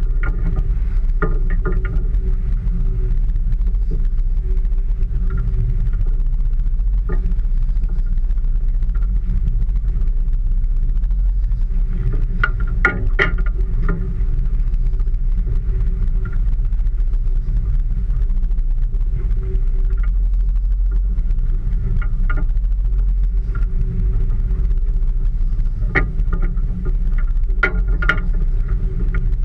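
Small boat at sea: a loud, steady low rumble with a faint steady hum over it, and scattered sharp knocks and clicks, clustered about 13 seconds in and again near the end.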